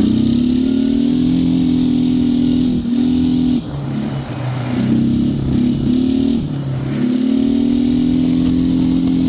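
Can-Am Outlander 850 V-twin ATV engine running at high revs under throttle. It drops back to lower revs for a few seconds in the middle, then picks back up and holds steady.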